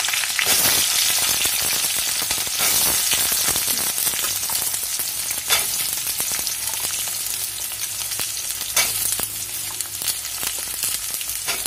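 Chopped shallots sizzling steadily as they fry in hot coconut oil in a stainless steel kadai. A few sharp clinks come from the perforated steel skimmer stirring them against the pan.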